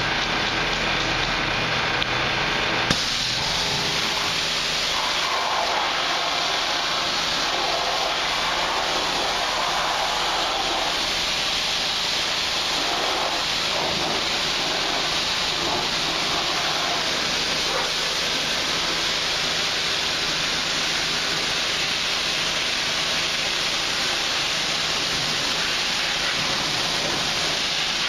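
Pressure-washer spray hitting a car's bodywork: a steady hiss of water that starts with a click about three seconds in, after a low hum.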